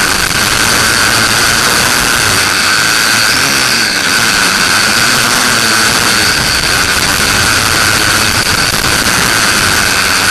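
Quadcopter's electric motors and propellers whining steadily in flight, loud and close, picked up by a camera mounted on the frame, over a broad rushing noise.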